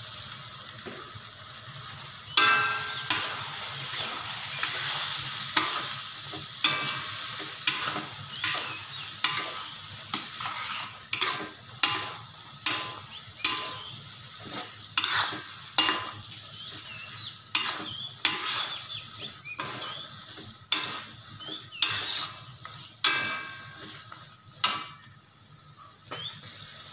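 Tiger prawns sizzling in a thick chilli sauce in a metal wok, with a metal spatula scraping and knocking against the wok as they are stir-fried, about one to two strokes a second over the steady frying hiss.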